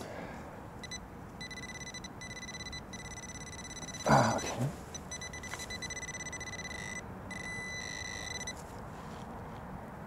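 Metal detector sounding on a buried coin: a rapid, high buzzing beep that starts about a second and a half in, breaks off and restarts several times, and stops shortly before the end. A brief voice sound cuts in about four seconds in.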